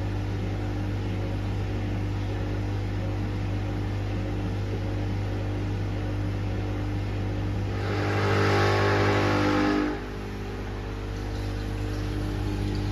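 Washing machine running on a 40 °C cottons cycle, its motor giving a steady hum. About eight seconds in, a louder rushing surge with a rising tone lasts about two seconds and cuts off abruptly.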